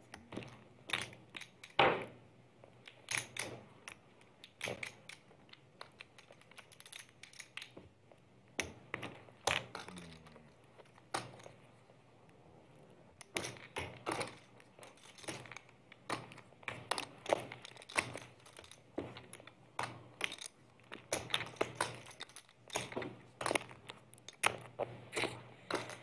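Poker chips clicking as they are handled, stacked and pushed out at the table: an irregular run of sharp little clicks with a couple of quieter lulls.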